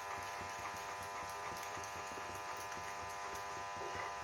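Steady electrical buzzing hum, unchanging throughout, with a few faint light ticks.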